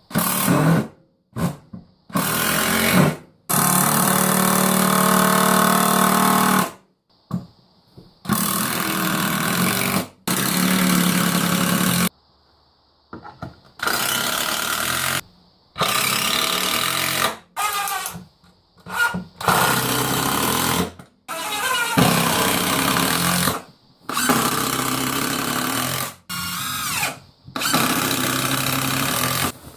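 DeWalt cordless impact driver driving screws into 2x4 pine, in about a dozen runs of one to three seconds each that start and stop sharply.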